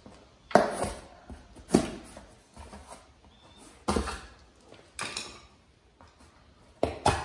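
Half a dozen irregular sharp knocks and taps from a sheet of cardboard being handled and drawn on with a marker.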